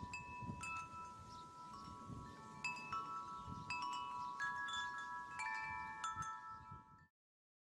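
Chimes ringing: a string of struck tones, one every second or so, each ringing on and overlapping the next, cut off abruptly about seven seconds in.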